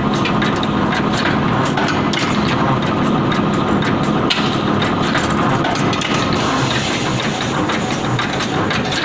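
Motor-driven rebar stirrup (begel) bending machine running, a steady hum overlaid with many sharp clicks and knocks.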